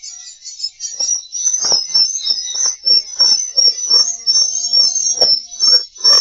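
Recorded swiftlet lure sound: a dense, non-stop twittering of edible-nest swiftlet chirps with rougher lower chirps mixed in several times a second, of the kind played to draw swiftlets into a nest house and make them roost.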